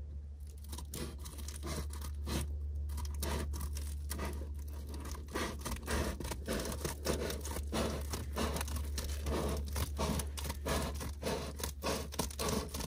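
Scissors cutting through a sheet of Reflectix foil-faced bubble insulation, a quick, continuous run of snips along with the crinkle of the foil and bubble layers.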